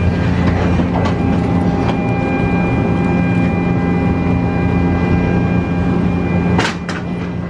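Steady mechanical hum with a faint high whine, the ambience of a jet bridge beside a parked airliner, with two sharp knocks near the end.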